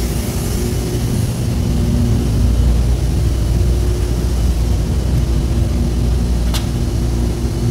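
Steady low mechanical rumble with a faint hum above it, with one sharp click about six and a half seconds in.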